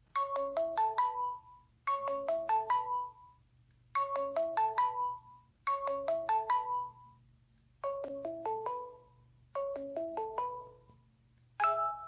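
Sony Xperia Z C6603 ringtone playing: a short melodic phrase of about eight quick notes, repeated roughly every two seconds.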